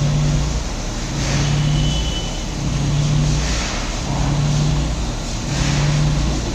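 A machine or engine running with a low hum that swells and fades in an even cycle, about once every second and a half, over a steady noisy background.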